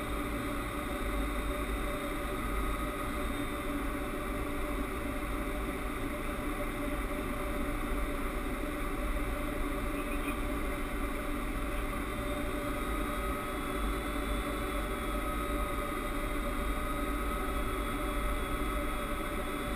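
Steady flight-deck noise of a Boeing 767 on final approach: rushing airflow over the cockpit with a low engine rumble underneath. A faint steady high tone comes in about two-thirds of the way through.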